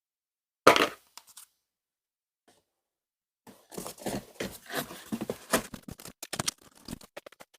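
Scissors cutting through corrugated cardboard. There is one loud crunching snip about a second in, then a run of crackly cutting and scraping from about halfway through.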